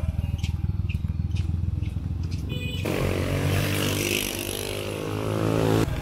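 Motorcycle engine running close by, a steady low hum with light regular ticks. About three seconds in the sound changes abruptly to an engine hum under a rushing hiss.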